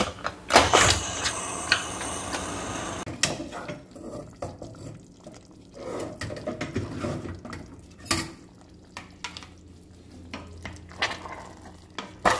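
Kitchen sounds at a pressure cooker: a steady hiss for about three seconds, then scattered knocks and scrapes of a wooden spoon against the metal pot.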